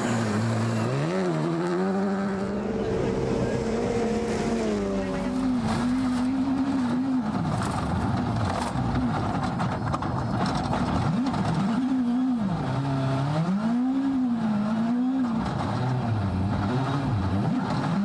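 Rally car's turbocharged four-cylinder engine driven hard on a gravel stage, its revs climbing and dropping again and again through the gear changes.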